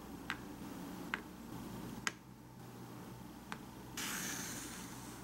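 Tiny ceramic bowls set down one after another on a table, four light, sharp clicks. About four seconds in a brief hiss starts suddenly, the loudest sound, and fades out.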